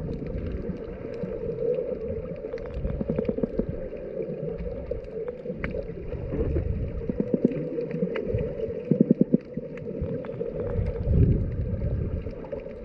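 Underwater sound picked up by a GoPro's microphone while snorkeling over a reef. A muffled, steady low drone and rumble runs throughout, with gurgles and scattered crackling clicks, and a cluster of louder pulses about nine seconds in.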